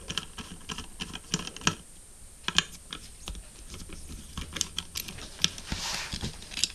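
Small metal clicks and taps of a precision screwdriver working the screws of a hard drive's platter clamp, irregular, a few a second, the loudest about two and a half seconds in. A brief hiss about six seconds in.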